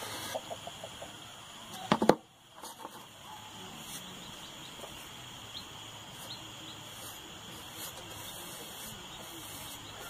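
Faint steady background hiss with a few light clicks and scrapes from a small hand tool working the rim of a freshly moulded, still-wet cement pot. A short voice sound comes about two seconds in.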